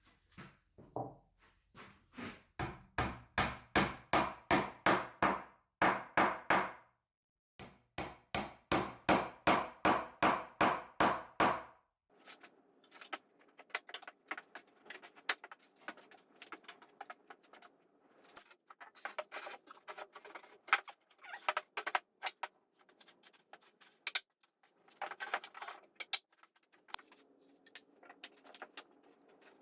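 A hand tool working wood in quick, even strokes, about three or four a second, in two runs. About twelve seconds in they give way to irregular light taps and ticks of hand work on wood.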